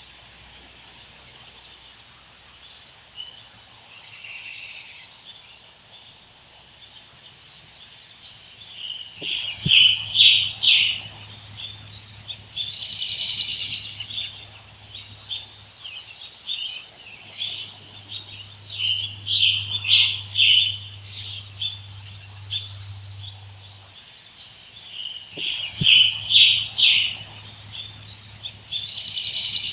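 Songbirds singing in woodland: clear high whistled notes about a second long, alternating with quick chirping trills, repeated every few seconds.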